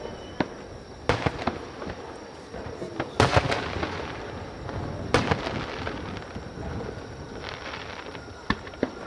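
Fireworks shells bursting in a string of sharp bangs, with the loudest cluster about three seconds in and single reports scattered through the rest.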